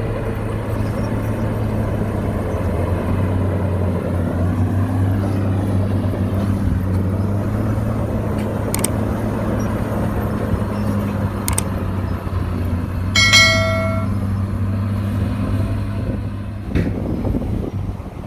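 Heavy earthmoving machinery's diesel engine running steadily with a low hum, with a few sharp clicks and a brief high-pitched tone about two-thirds of the way through.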